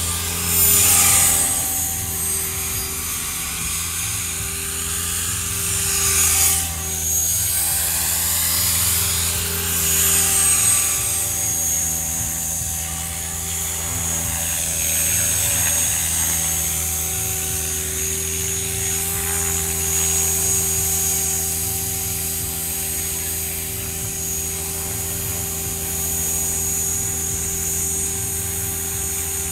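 Align T-Rex 500 electric RC helicopter flying, its rotor and motor giving a steady buzzing hum. The sound swells and shifts in pitch several times in the first half as the helicopter moves about, then holds steadier.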